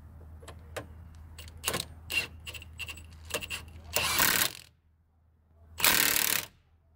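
Milwaukee impact wrench hammering in two short bursts, about half a second each and a second apart, as it tightens the bottom bolt of a rear lateral link. A few light metallic clicks come before the first burst.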